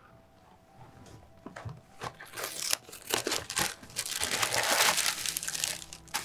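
Plastic snack bag crinkling as it is picked up and handled: a few scattered crackles at first, then dense crinkling that grows louder from about two seconds in.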